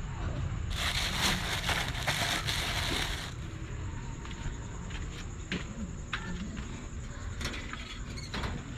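Plastic bag and sack crinkling and rustling for a couple of seconds, then scattered light clicks and knocks of handling and footsteps, over a thin steady high-pitched whine.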